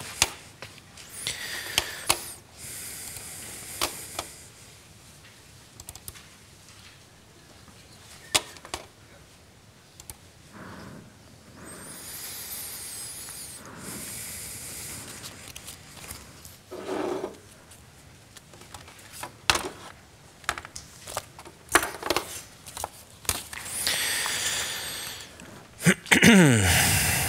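Scattered clicks, taps and rustling as a laptop presentation is set up at a lectern, with a louder burst of rustling near the end.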